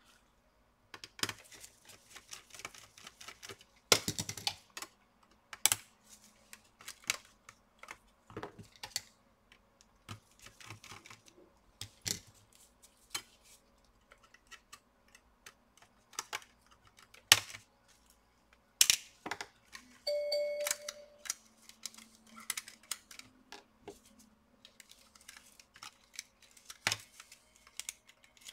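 Scattered small clicks, taps and scrapes of a screwdriver, tweezers and plastic laptop parts being handled while cables are unplugged and the cooling fan is unscrewed and lifted out, with a few sharper knocks.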